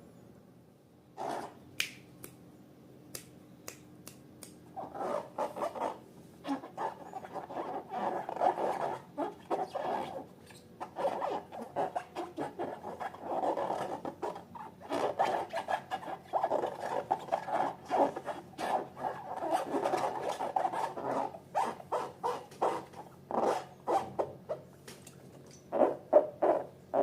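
Hands working balloons and slime: a long run of short, irregular rubbery rubs and squeaks, starting after a few quiet seconds with a few sharp clicks.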